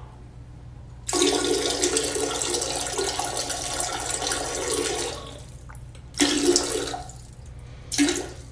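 Toilet flushing: a rush of water that lasts about four seconds, followed by two shorter bursts of the same rushing noise.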